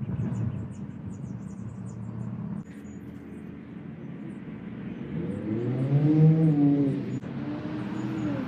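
Motor vehicle engine with a steady low rumble; a little past the middle its pitch rises and falls once, as it revs up and eases off.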